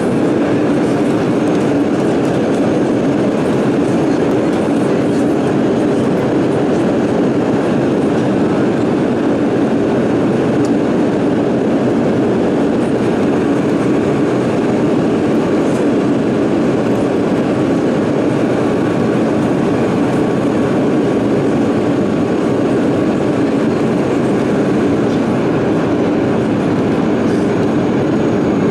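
Steady, loud cabin noise inside a Boeing 737 on approach: the rush of airflow and the jet engines at reduced thrust, heard from a window seat over the wing, with a faint thin whine in the middle part.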